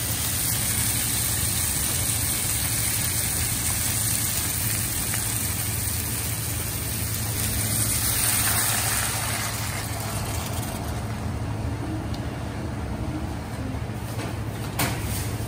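Fish sizzling in a hot wok over a steady low hum. About eight seconds in, yellow coconut-milk broth is poured in and the sizzle swells briefly, then quiets as the liquid cools the pan. A light click near the end.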